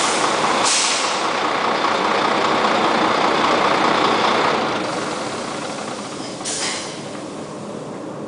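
Volvo FH truck's diesel engine idling, then winding down and going quiet from about five seconds in as it is switched off. There is a short hiss of air from the truck's air system near the start and again about six and a half seconds in.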